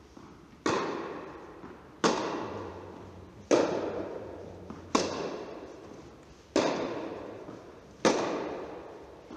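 Tennis balls struck with rackets in a baseline rally: six sharp hits about one and a half seconds apart, each ringing out in the echo of a large indoor tennis hall.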